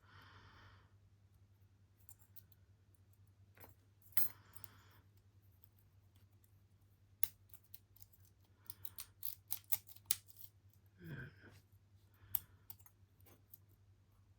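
Lock-picking tools clicking and scraping in a 58mm brass padlock's keyway: scattered sharp metallic clicks, thickest about seven to ten seconds in, with a few short soft scrapes.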